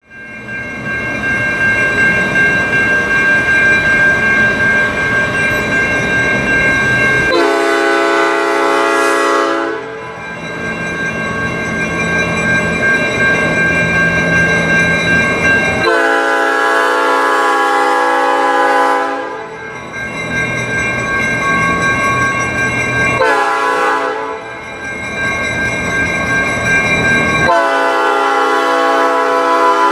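A Grand Trunk Western EMD locomotive's Nathan P5 five-chime air horn blows the grade-crossing pattern: long, long, short, long. Its mechanical bell rings steadily throughout, and the diesel engine can be heard running before the first blast.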